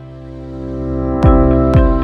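Background music: sustained chords swelling up, with a steady beat coming in a little after a second, about two beats a second.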